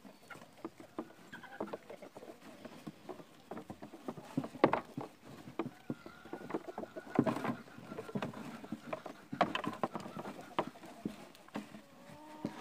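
Sheep feeding at a trough of leucaena branches: irregular clicks, knocks and rustling as they chew, pull at the leafy stems and bump the trough.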